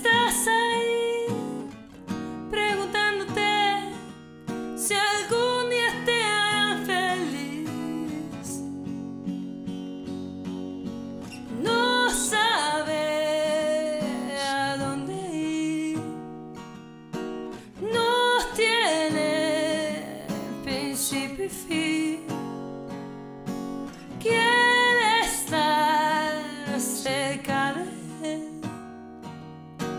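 A woman singing a slow ballad over acoustic guitar, her voice wavering with vibrato in several long phrases, with short stretches of guitar alone between them.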